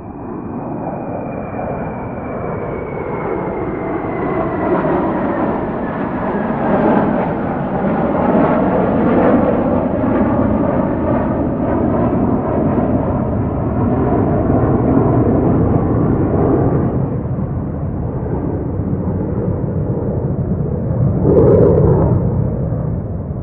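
Airplane engines running up and roaring through a takeoff run, the noise building steadily. A high whine glides slowly down in pitch over the first several seconds, and there is a brief louder surge near the end.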